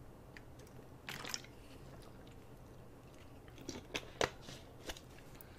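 Faint crinkling of a thin plastic water bottle squeezed and handled during drinking: a few short crackles about a second in, and a few more around four seconds in.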